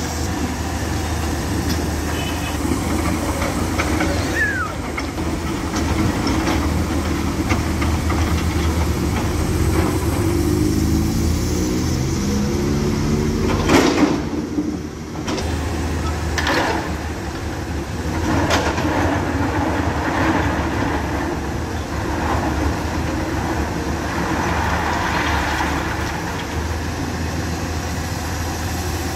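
Hyundai 210LC crawler excavator's diesel engine running steadily, its note changing as the boom and bucket swing. About halfway through comes a loud crash of rocks tipped from the bucket, followed by smaller knocks and clatter of stones.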